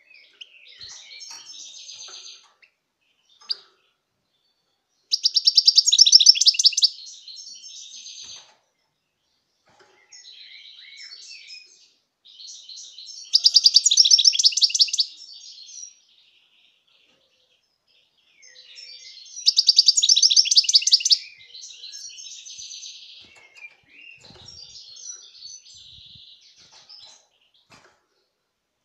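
European goldfinch singing: runs of twittering notes broken by three louder, rapid trilled phrases several seconds apart, with short pauses between phrases.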